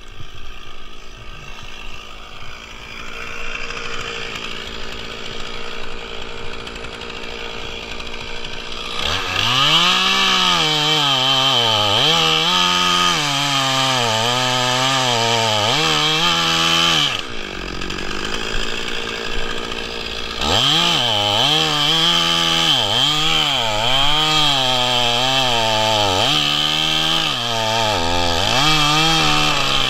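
Stihl chainsaw cutting into a eucalyptus trunk at high revs, its pitch dipping and recovering again and again as the chain bites into the wood. There are two long cuts: the first starts about nine seconds in, and the second follows a pause of about three seconds. The cuts make a face notch in the trunk.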